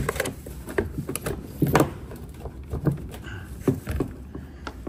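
Handling noise around the kayak's hatch and hull: about a dozen irregular taps, clicks and light knocks, the loudest a little under two seconds in.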